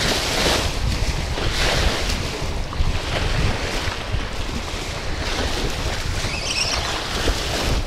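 Choppy wind-driven lake waves splashing against a sloped concrete embankment, in washes that swell every second or two, with gusty wind rumbling on the microphone.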